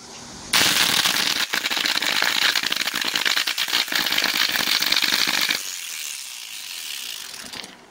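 4-inch angle grinder with a burnt-out motor running weakly, its brushes arcing heavily at the commutator with a rapid crackling and popping. It switches on about half a second in and off about five seconds later, then winds down quietly. The crackling arcing is the sign of a burnt armature.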